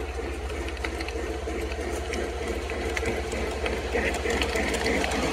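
Model train running on the shelf-layout track: a geared motor whirring, with rapid light clicking from the wheels on the rails, growing louder as the train approaches.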